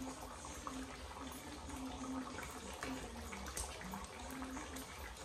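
Thick curry sauce bubbling in a frying pan at a simmer, with many small irregular pops over a low steady hum.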